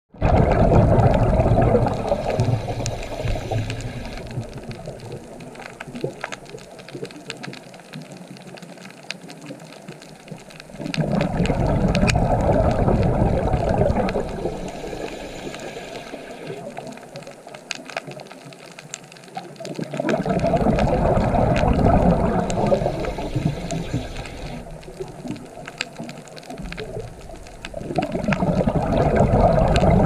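Underwater water noise: a low rush of water that swells up suddenly and fades away slowly, four times about nine seconds apart, with faint scattered clicks.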